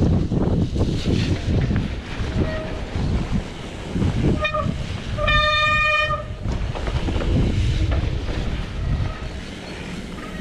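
Mountain bike riding over a trail with wind buffeting the microphone, and a steady high squeal lasting just over a second a little past the middle, with shorter chirps at the same pitch a few times before and after: disc brakes squealing as the rider brakes.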